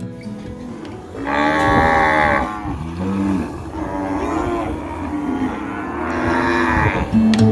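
Cattle mooing: two long moos, one about a second in and another near the end.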